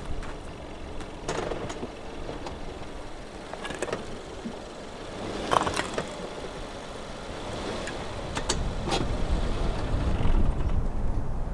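Subaru Forester's flat-four engine running at low revs as the car is eased up onto a rock under a rear tire to level it, with several sharp knocks and crunches from the tire and stones. The low rumble swells near the end.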